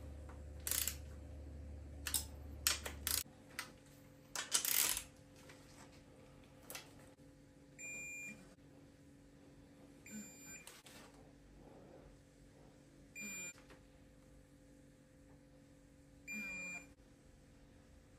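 Digital torque wrench beeping four times, about half a second each, as it reaches the set torque on the ARP head-stud nuts of a BMW S38B36 cylinder head. Sharp metallic clicks of the wrench and socket working the nuts come in the first few seconds.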